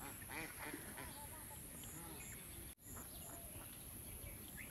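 Rural outdoor background: faint voices and calls that may be ducks or other fowl, clearest in the first second or so, over a steady high hiss. The sound drops out briefly a little over halfway through.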